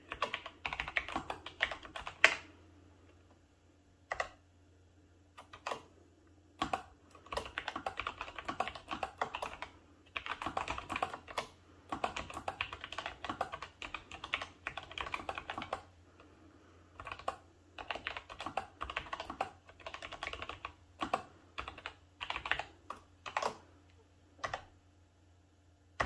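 Typing on the Freewrite Alpha's flush keyboard: quick runs of quiet key clicks broken by short pauses.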